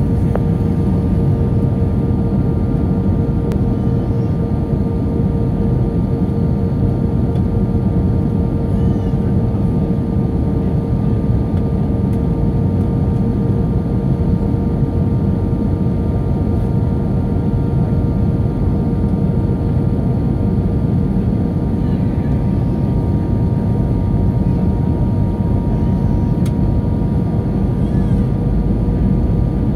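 Cabin noise inside an Airbus A319 in flight: a steady, loud low rumble of engines and airflow, with a constant hum and a few fainter steady whines above it.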